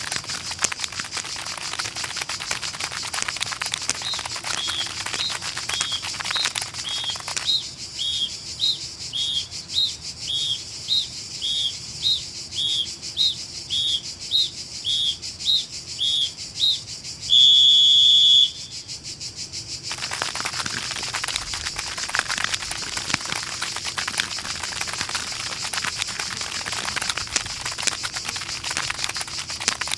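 Cartoon sound effects: a steady crackly hiss with a long run of short, high whistle-like peeps, about one and a half a second, alternating between two pitches. They end in one louder, sustained whistle blast lasting about a second, after which the crackle carries on alone.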